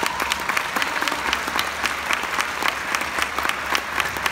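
Audience applauding, a dense steady patter of many hands, with sharper, louder claps from one person close by standing out.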